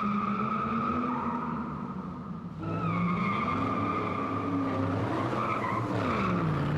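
Car engine running, its pitch rising about three seconds in and falling near the end, under a steady high-pitched tyre squeal from a skidding car.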